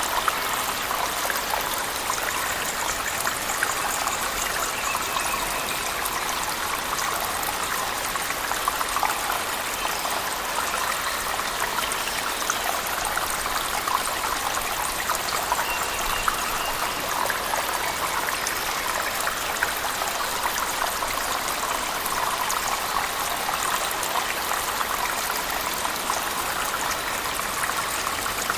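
Cave waterfall and heavy rain mixed together: a steady rush of falling water with fine spattering drops.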